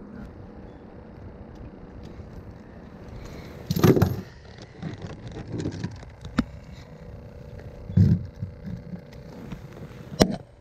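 Handling noise in a fishing boat as a fish is brought down to the deck to be weighed: two loud knocks about four seconds apart, light rattles and bumps between them, and a sharp click near the end.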